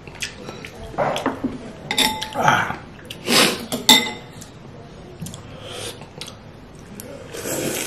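Metal spoon and chopsticks clinking against a ceramic soup bowl, with two sharp ringing clinks about two and four seconds in, between slurping and eating noises.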